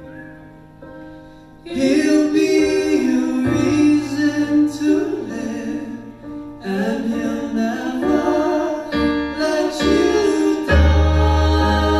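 Live Hawaiian band: male voices singing in harmony over ukulele, acoustic guitar and electric bass. A soft held chord opens, then the voices and band come in full about two seconds in.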